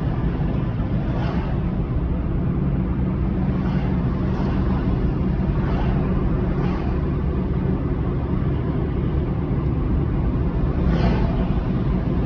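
Car driving through town: a steady low engine and road rumble, with brief swishes every few seconds.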